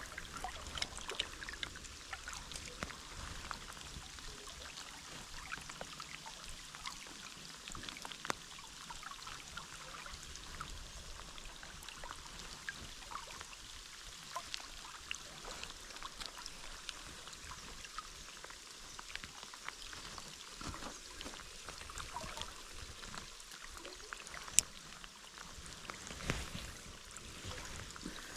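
Shallow creek water running and trickling, with many light irregular ticks and a few sharper clicks scattered through it.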